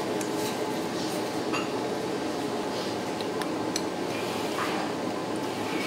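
Scattered light clinks of cutlery against ceramic bowls and dishes over a steady restaurant room hum.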